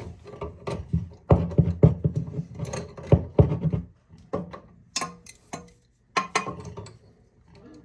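Crescent wrench clicking and clinking against the chrome shut-off valve and supply-line nut as it is set on the nut and turned: a quick run of small metal taps and knocks for the first four seconds, then a few scattered clicks.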